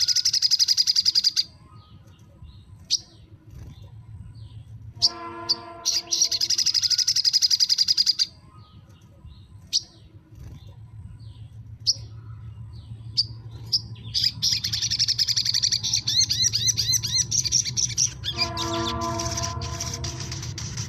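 Sogon sunbird song: four loud bursts of fast, high trilling, each one to four seconds long, with single sharp chips in the gaps between them.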